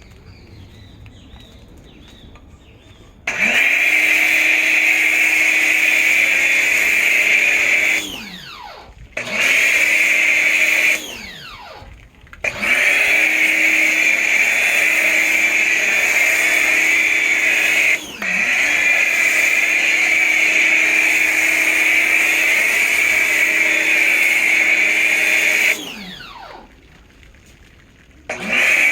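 WAP high-pressure washer's electric motor starting and stopping four times, running for a few seconds up to about 13 seconds at a stretch with a steady high whine. Each start rises quickly to speed and each stop winds down with falling pitch, as the washer's auto-stop follows the spray-gun trigger being pressed and released.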